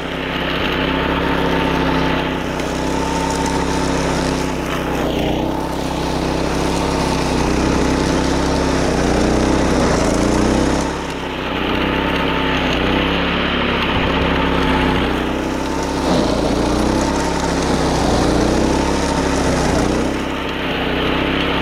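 Small petrol engine of a wing mower (levee mower) running steadily while mowing grass. Its note and the higher cutting noise dip and recover every few seconds.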